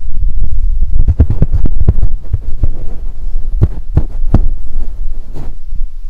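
Hands packing soil around a larch seedling in a plastic pot: a run of knocks and scrapes over a steady low rumble, the knocks bunched about a second in and again near four seconds.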